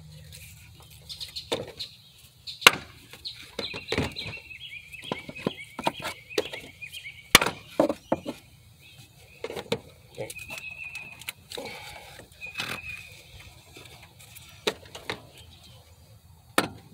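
Irregular sharp knocks and clanks of metal parts being worked against each other as a replacement alternator is forced into its mount on a Chevy 5.3 LS engine, several of them loud. Short high chirps, like small birds, come in a run in the first half and twice more later.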